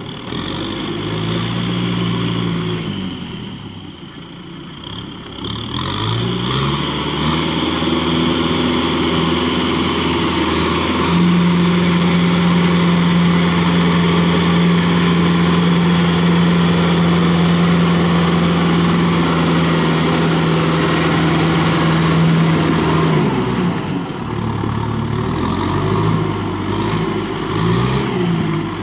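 Kubota diesel tractor engine working a rotary tiller through a wet paddy. Its pitch rises and falls a few times as the throttle changes, then holds steady under load for about twelve seconds in the middle, and shifts again near the end.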